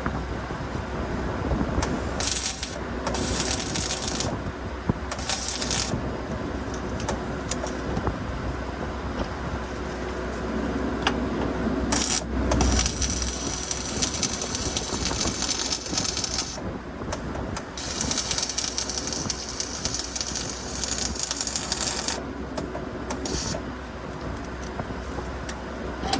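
Repeated bursts of harsh, rattly metalwork noise over a steady low hum: several short bursts, then two longer ones of about four seconds each.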